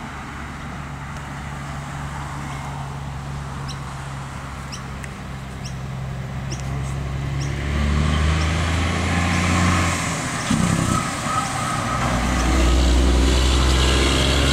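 A motor vehicle engine running with a steady low hum, growing louder through the second half. A few short high ticks come about four to seven seconds in.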